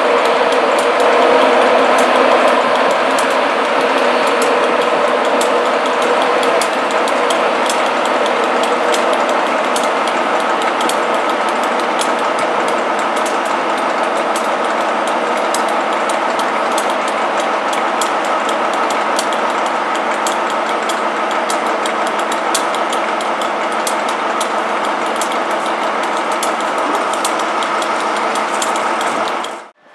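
Diesel locomotive engine running steadily at idle: a loud, even drone with several held tones and a fast metallic clatter over it.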